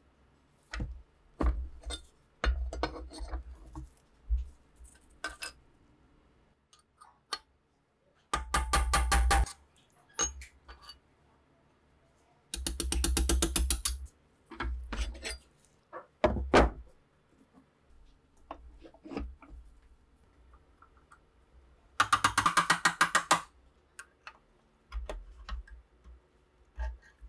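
Scattered metal clicks and knocks from the rusty parts of an SVT-40 rifle being worked with hand tools in a bench vise. Three times the sound turns into a run of rapid, even clicking lasting about a second, like a ratchet.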